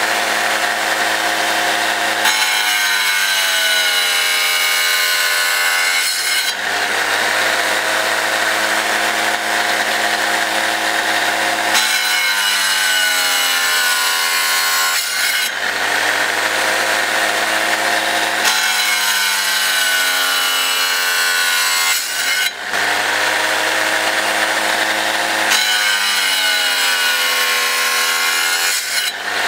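Wet tile saw's diamond blade slicing through rock drill core. The motor's whine sinks slowly in pitch as each cut loads the blade and jumps back up as the slice comes free, four times, over a constant gritty hiss of blade and water.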